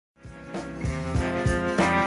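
Instrumental intro music with a steady beat, starting a moment in and building up.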